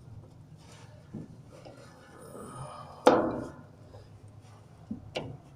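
Handling noise from work on a washing machine's belt drive: a loud, sharp knock about three seconds in that rings briefly, and a smaller click near the end.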